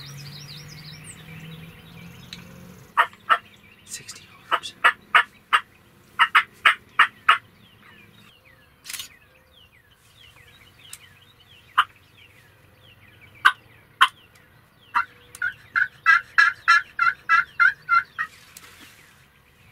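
Turkey clucks and yelps: sharp single notes and short runs through the middle, then a steady run of about a dozen yelps, roughly four a second, near the end.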